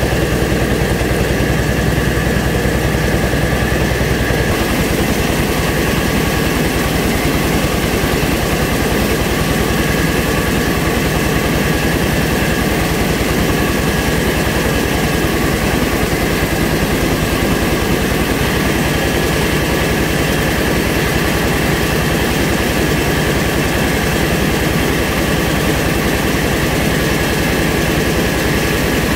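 Engine-driven mobile rice milling machine running steadily under load, a loud dense mechanical noise, its low drone shifting slightly about four and a half seconds in.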